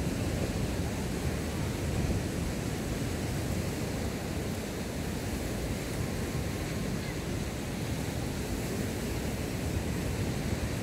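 Steady rushing noise of sea surf and wind buffeting the microphone.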